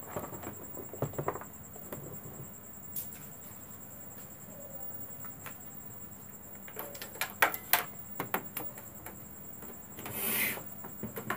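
A hand handling a CRT television, touching the glass screen and then the plastic cabinet top: scattered sharp clicks, a cluster of louder clicks a few seconds later, and a brief rubbing swish near the end. A steady thin high tone runs underneath.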